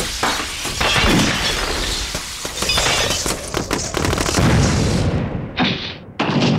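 Cartoon slapstick sound effects: a dense, loud clatter of crashes, bangs and breaking, ending in two short separate bursts near the end.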